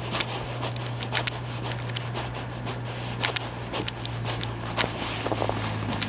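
Footsteps on a snow-covered pavement, about two steps a second, over a steady low hum.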